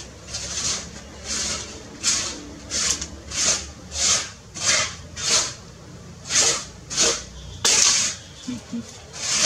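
Rhythmic rasping, hissing strokes, about one and a half a second, with one sharper, louder stroke about eight seconds in.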